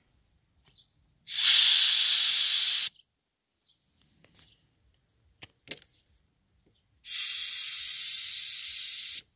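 Compressed air hissing out through a push-button valve on an air line, in two bursts of about one and a half and two seconds, as the line's pressure is let down. A few faint clicks come between the bursts.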